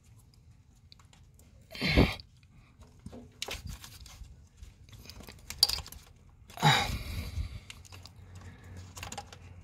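Hands working a plastic electrical connector loose among corrugated plastic wiring looms in a cramped engine bay: scattered crackling and clicking, with a sharp click a little after five and a half seconds. Two brief louder noises stand out, about two seconds in and near seven seconds.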